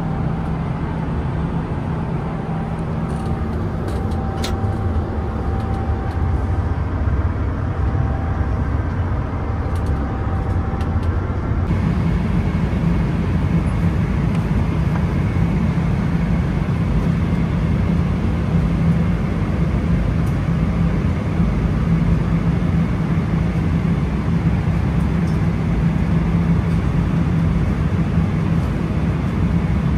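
Steady rumble and rush of a Boeing 777-300ER's GE90 jet engines and airflow, heard inside the cabin. About twelve seconds in the sound shifts, with more hiss and a stronger low hum.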